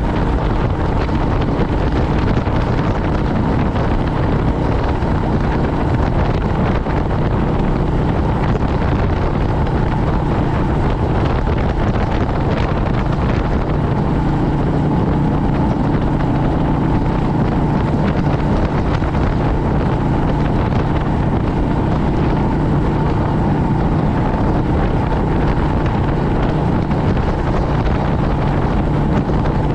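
Royal Enfield Meteor 350's single-cylinder engine running steadily at road speed, with wind rushing over the microphone. The engine note grows a little stronger about halfway through.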